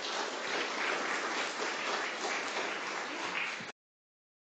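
Audience applauding steadily, stopping abruptly near the end.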